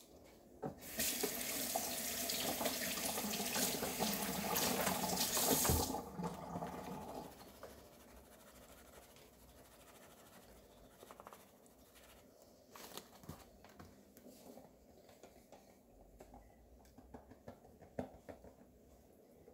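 Kitchen tap running into the sink as soapy hands are rinsed, a steady rush that starts about a second in and is shut off about five seconds later. Faint knocks and rustling follow.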